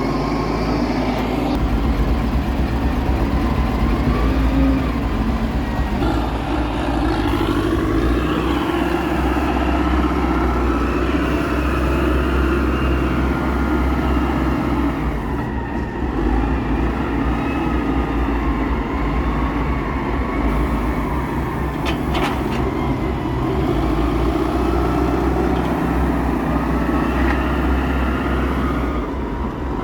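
Heavy diesel machinery running during the loading of large logs onto a logging truck: a steady deep engine rumble with a whine that rises and falls as the load changes. A brief knock sounds about two-thirds of the way through.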